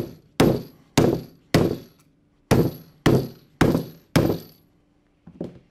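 Small sledgehammer striking rivets loaded into the guide block of a conveyor-belt fastener tool. There are eight sharp metallic knocks, each with a brief ring, about two a second with a short pause after the fourth. Two faint clinks follow near the end.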